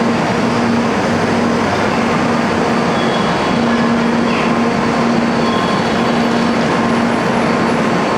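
Train running: a steady, loud rumble with a low hum that fades in and out.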